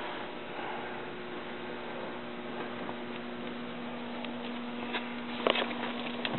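A steady hum at one pitch, with a few faint knocks about five seconds in.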